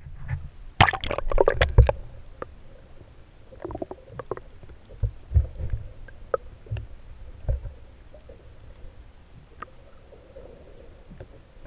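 Irregular knocks, clicks and low thumps, such as gear or the camera being handled on a boat. The loudest part is a quick cluster of clatter about a second in, followed by scattered single knocks.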